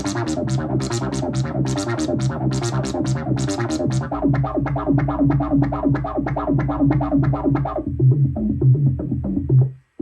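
Korg Minilogue analog synthesizer playing a fast, repeating electronic pattern over a steady bass line, with crisp ticks about six a second in the first few seconds. The pattern changes near the end and then cuts off abruptly.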